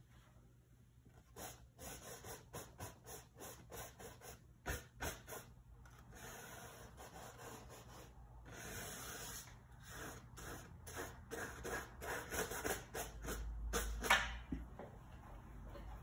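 A paintbrush scrubbing and dabbing oil paint onto a stretched canvas: a run of short, scratchy strokes that start about a second and a half in, a few of them louder than the rest.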